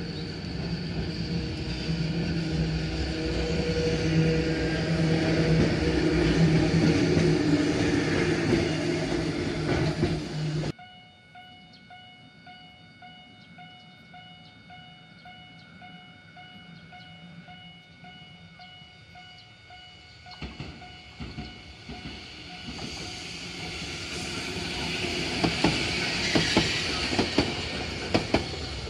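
Two-car Randen tram running along street track amid road traffic, with a steady hum, cut off abruptly about a third of the way in. Then, over an evenly repeating ringing signal, another two-car Randen tram approaches on its own track, its wheels clacking over the rail joints, loudest near the end.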